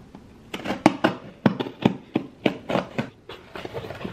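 A cardboard shipping box being slit open with a knife and its flaps pulled apart: a quick run of about a dozen short, sharp rips and scrapes, starting about half a second in and stopping shortly before the end.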